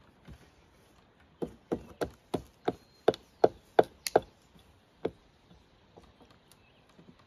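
Hammer driving a nail into a wooden beam: a run of about nine sharp strikes, roughly three a second and getting louder, then one more strike after a short pause.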